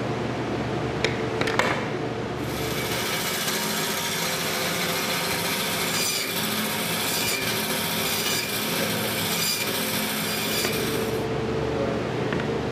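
Meat band saw running and cutting lamb, starting about two seconds in and stopping near the end. A few sharp knife clicks come just before it.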